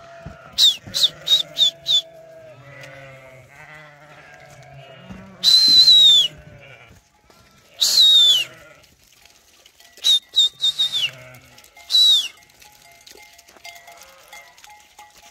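Sheep and lambs bleating. Faint low calls run underneath several loud, sharp, high calls that fall in pitch, some coming in quick runs of four or five.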